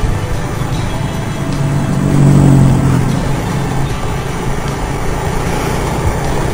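Automatic motor scooter riding along a road: steady engine, tyre and wind noise. A low engine tone swells louder about two seconds in and fades about a second later.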